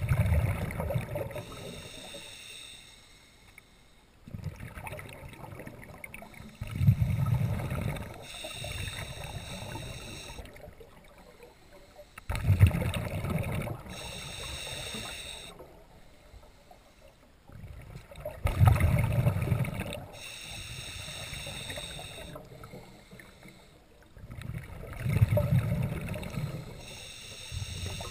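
Scuba diver breathing through a regulator underwater: about every six seconds a loud bubbling rumble of exhaled air, alternating with a quieter hiss of breathing in, five breaths in all.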